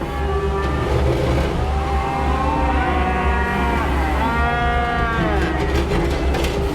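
Cattle mooing: two long calls, one after the other, over the steady low running of a New Holland L318 skid steer's diesel engine.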